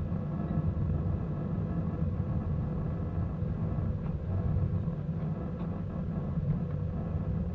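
Ridable miniature train rolling along the track, heard from the rear car: a steady low rumble of wheels on rails, with a few faint clicks.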